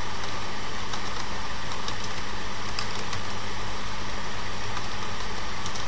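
Steady low hum with hiss, with a few faint keyboard key clicks as code is typed.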